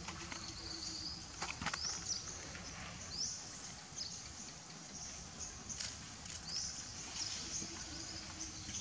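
Outdoor ambience with short, high, rising chirps repeating every second or so. A few soft rustles and taps come about one and a half seconds in and again near six seconds.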